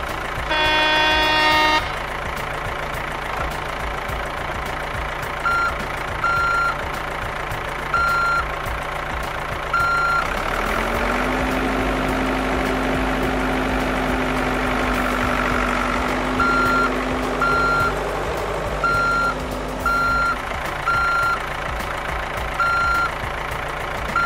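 Sound effect of a heavy construction vehicle: a low engine rumble throughout, a loud horn-like blare about a second in, a steadier engine drone through the middle, and a truck's reversing alarm beeping in short runs from about a quarter of the way in.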